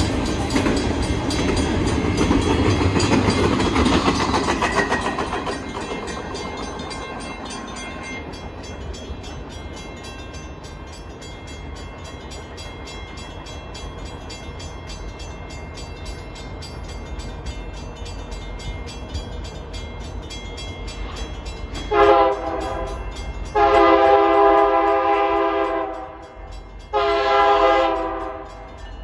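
A double-stack container train rolls past with steady wheel and car noise that fades after about five seconds. Near the end, an approaching BNSF diesel freight locomotive sounds its multi-chime air horn three times: one brief blast, one long blast of about two and a half seconds, then a shorter one.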